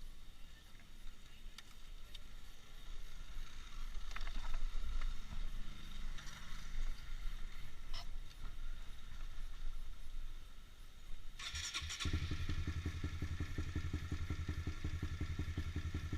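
Honda CBR150R's single-cylinder engine being started: about a half-second of starter cranking, then the engine catches and idles steadily with an even pulse. Before that there are only faint street background and a few light clicks.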